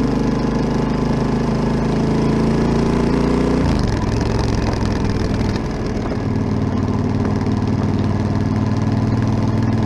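Yamaha XT1200ZE Super Ténéré's 1200 cc parallel-twin engine running through a Delkevic 343 mm oval carbon-tipped exhaust. It holds a steady note, then the revs drop to a lower, steady pitch a little under four seconds in.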